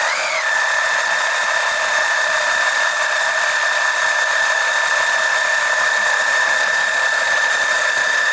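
Small electric oil-extraction pump running with a steady high whine, with a brief wobble in pitch at the start, sucking old oil out of the engine.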